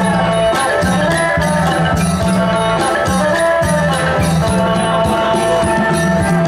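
Isan pong lang folk band playing a lively piece, with pitched melody instruments over a low bass line and a steady beat of drums and shaken percussion.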